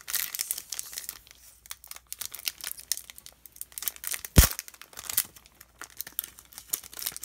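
Crinkling and tearing of a trading-card pack's wrapper as it is ripped open by hand, with one sharp thump a little past halfway.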